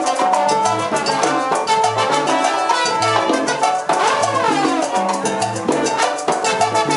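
Live salsa band playing: trombones over congas, timbales and bass, in a steady driving rhythm.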